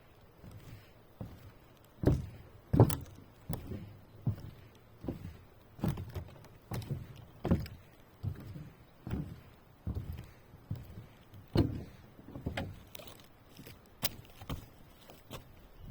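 A string of uneven knocks and thuds, about one to two a second, each with a short low thump beneath it.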